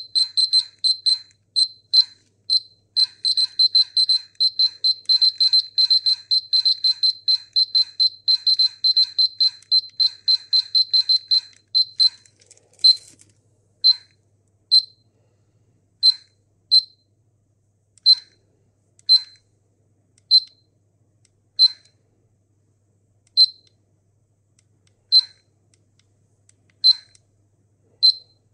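Polimaster PM1703-GNA radiation detector beeping in search mode, short high beeps whose rate follows the detected count rate: several a second and uneven at first, then about twelve seconds in dropping to single beeps every second or two, as the count rate falls toward background.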